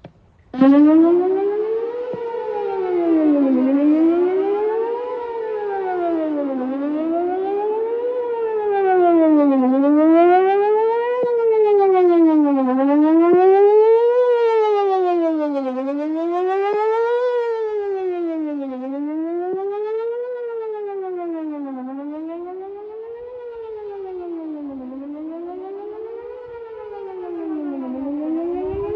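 Whelen WPS-4008 electronic outdoor warning siren sounding a loud wail during a scheduled test, its pitch rising and falling evenly about every three seconds. It comes on suddenly about half a second in.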